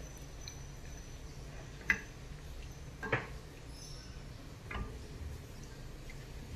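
Wooden spatula stirring a liquid coconut-milk rasam in a stainless steel pot, knocking sharply against the pot three times, the first knock about two seconds in the loudest. A low steady hum runs underneath.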